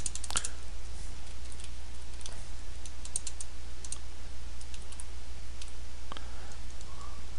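Computer keyboard typing: scattered clusters of keystroke clicks at an uneven pace, over a steady low hum.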